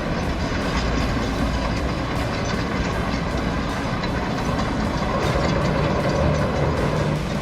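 A heavy machine's engine running with a steady low rumble.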